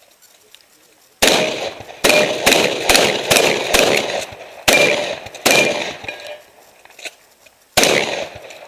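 Shotgun fired in a rapid string of about nine shots, mostly half a second to a second apart, with a pause of about two seconds before the last shot. A short ringing note follows several of the shots.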